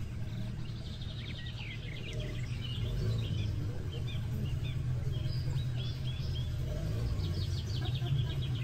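Several birds chirping, with quick runs of repeated notes about a second in and again near the end, over a steady low rumble.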